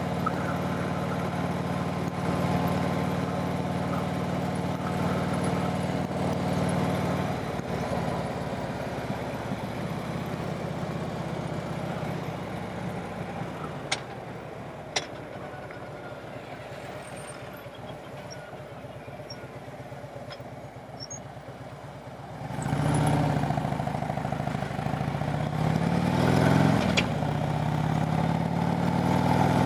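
Harley-Davidson motorcycle engine on the road: running steadily, then easing off to a low, quieter run with two sharp clicks, then pulling away loudly about two-thirds in, its pitch climbing in steps through the gears.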